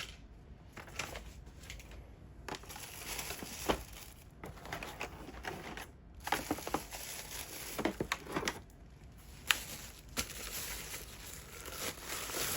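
Packaging crinkling and rustling in uneven bursts as it is handled and unwrapped, with a few sharp clicks.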